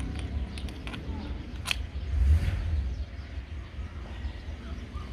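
A few light clicks of metal parts handled, the loudest a little under two seconds in, from the steering rack's pinion housing being turned over in the hands for refitting. Under them runs a steady low rumble that swells about two seconds in.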